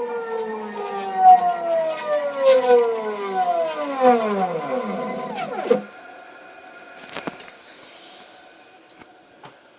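A CNC machine's motor whine gliding steadily down in pitch as it winds down, cutting off about six seconds in and leaving a quieter steady hum with a click or two.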